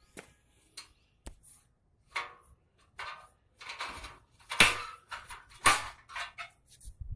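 Irregular scuffing steps and a few sharp knocks of a hand-held phone being carried and moved about, the loudest two knocks past the middle.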